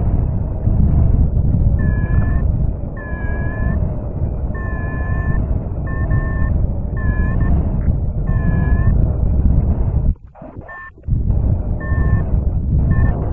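Paragliding variometer beeping in short, repeated two-tone pips about once a second, the climb tone that signals rising in lift, over a loud rumble of wind on the microphone. Both cut out for about a second near the end.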